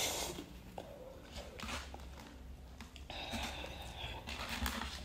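A slurp of instant cup noodles at the start, then chewing and small wet mouth sounds.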